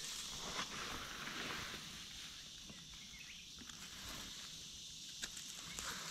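Faint forest ambience: a steady high insect drone, with a few soft rustles or steps near the end.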